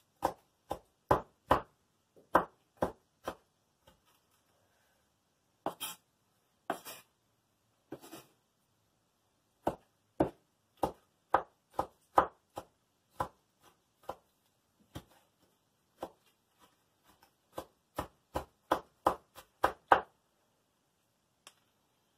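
Kitchen knife dicing Roma tomatoes on a wooden cutting board: sharp knocks of the blade on the board in runs of roughly two a second. A few hissier scraping strokes come about a third of the way in, and the chopping stops near the end.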